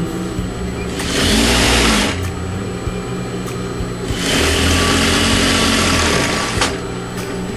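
Electric sewing machine stitching a pillow-cover seam in stop-start runs: a short run of about a second, then a longer run of about two and a half seconds.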